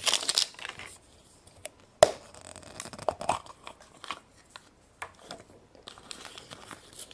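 Crinkling and tearing of a surprise egg's wrapper being opened by hand, with a sharp click about two seconds in and scattered smaller clicks and rustles after it.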